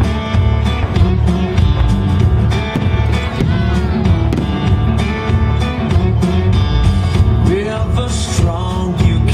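Country-style music with guitar and singing.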